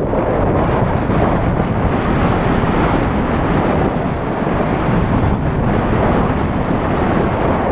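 Strong wind blowing across the microphone, a loud, steady rushing noise with no let-up.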